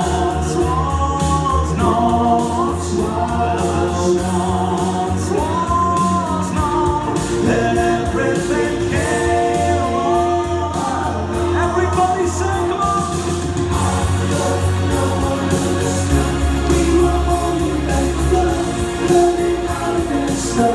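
Three male voices singing together in harmony, live through a PA, over accompanying music with a sustained bass line and a steady beat.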